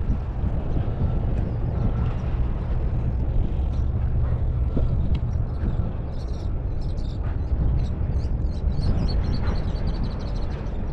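Wind buffeting the microphone in a steady low rumble, with birds calling in short high chirps from about halfway through and a quick run of high notes near the end.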